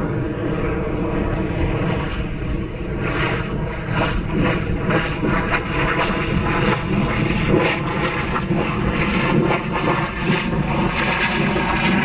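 Armadillo Aerospace Mod rocket's liquid-oxygen and alcohol engine firing steadily in flight: a continuous rushing noise with a steady hum under it, crackling more often from about three seconds in.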